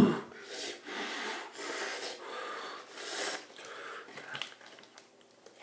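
Heavy, hissing breaths through the mouth and nose, several in a row, from someone whose mouth and throat are burning from spicy Flaming Hot Cheetos. A few small crackles come about four seconds in, and then the breathing dies away.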